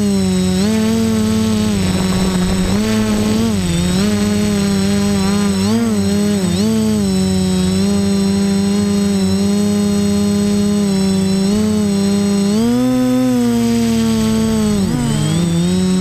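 Quadcopter's electric motors and propellers running with a steady buzzing hum, the pitch wavering up and down with the throttle: several quick dips, a rise about thirteen seconds in, and a drop near the end.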